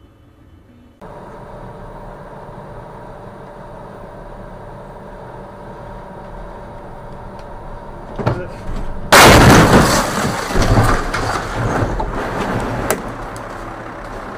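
Road crash on snow: steady driving noise, then a couple of knocks and a very loud impact about nine seconds in, followed by a few seconds of crunching and clattering as a bus ends up wrecked against a roadside fence.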